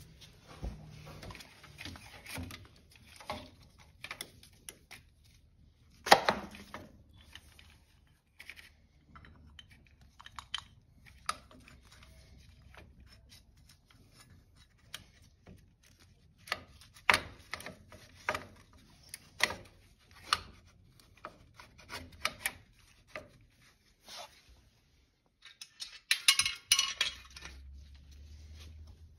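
Hand tools and metal parts clinking and knocking while a brake caliper is refitted to an ATV's front hub. The clicks are scattered, with one loud knock about six seconds in and a dense burst of rattling near the end.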